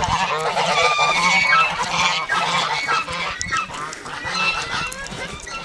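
A flock of domestic geese honking, many short calls overlapping, busiest in the first half and thinning out toward the end.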